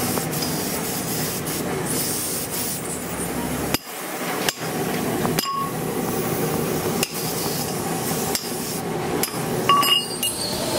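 Loose steel rods and a tractor top link's steel tube knocking and clinking together as the link is assembled, about six sharp metallic clinks spread out, two of them ringing briefly, over a steady background noise.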